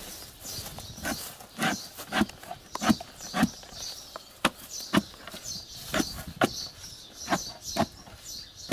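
A spade digging a post hole in soil: a run of sharp jabs and scrapes of the blade, starting about a second in and coming about twice a second with short pauses.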